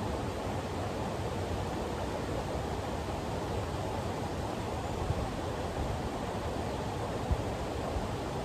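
River water rushing steadily over a riffle, with a couple of brief low knocks about five and seven seconds in.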